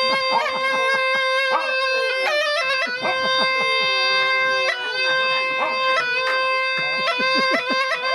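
Bagpipe playing a tune over a long held note, with a dog howling along in gliding, wavering tones beneath it.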